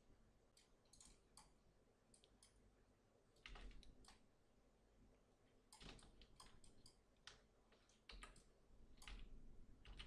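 Faint, irregular computer mouse clicks and keyboard taps, a few in quick clusters, with a few soft low thuds among them.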